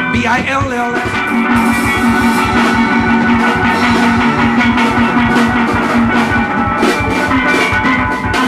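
Live steel pans playing with a band, drum kit keeping a steady beat underneath and a long held low note through most of it. A voice sings "B-I-L-L" about a second in.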